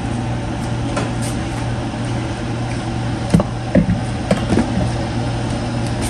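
A steady low mechanical hum with a hiss over it, and a few light clicks and knocks about halfway through.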